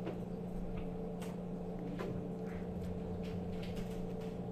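Faint, irregular small clicks and scrapes of a Phillips screwdriver driving screws into a receipt printer's plastic housing, over a steady low hum.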